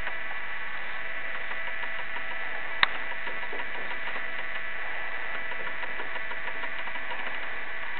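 Steady mechanical whir and hiss with a faint high whine, and one sharp click about three seconds in.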